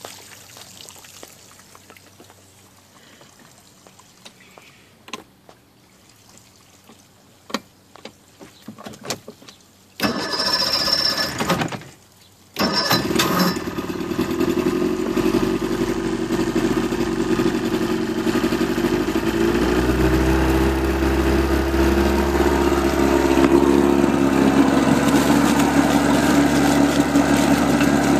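Chrysler 55 hp two-stroke outboard motor cold-started on the key after priming: after about ten seconds of faint clicks, the starter cranks for about two seconds, and the engine catches a moment later and settles into a steady idle, its lower unit running in a trash can of water.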